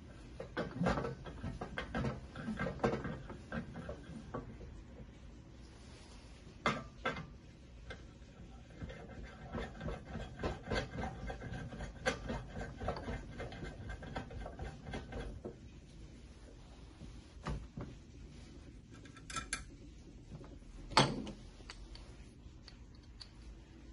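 Metal clicks, taps and scraping from hand-assembling the turning handle onto the hinge pivot of a stainless-steel bubble waffle maker, with a run of quick ticks in the middle and a sharp knock near the end.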